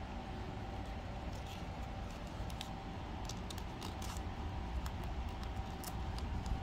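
Donruss Optic football cards sliding and flicking against each other as they are flipped through by hand: a run of light, irregular clicks over a steady low hum.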